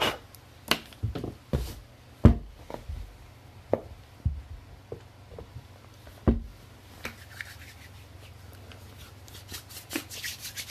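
Things being picked up and set down on a table as it is cleared: a series of sharp knocks and clatters, the loudest about two seconds in and another about six seconds in. Near the end, hands rubbing together.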